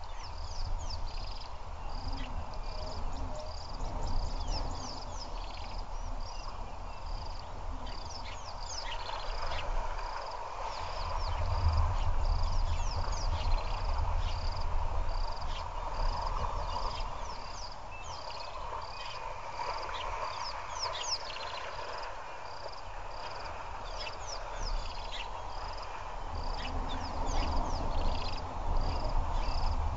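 Waterside animal chorus: a high call repeating steadily about three times every two seconds, with many short, high, falling chirps scattered over it, all over a low rumble.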